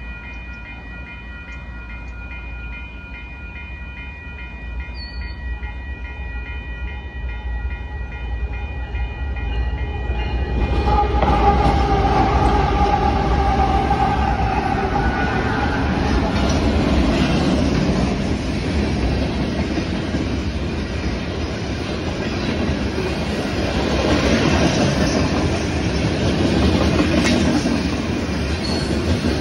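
Level-crossing warning bell ringing in steady tones as a freight train's diesel locomotives approach, the rumble rising. About ten seconds in the locomotives reach the crossing and pass loudly. Freight cars follow, their wheels clattering over the rail joints.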